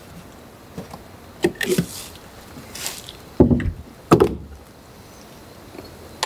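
A run of clunks and knocks from a vehicle's doors and truck-bed hardware being worked, with the two loudest about three and a half and four seconds in.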